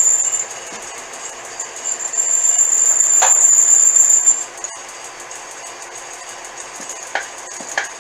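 Dull twist drill bit squealing at a high, steady pitch as it cuts into a bronze bearing on an antique belt-driven drill press. The squeal is heard briefly at the start, then again more loudly from about two to four seconds in. The press runs steadily underneath, with a few light clicks near the end.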